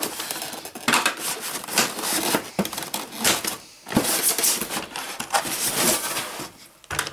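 A 1:16 plastic RC tank model being worked loose and lifted out of its polystyrene foam packaging: a string of irregular scrapes, rustles and light knocks of plastic rubbing against foam and wrapping.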